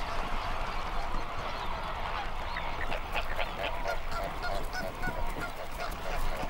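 A colony of flamingos calling all at once: a dense, continuous honking chatter of many birds overlapping.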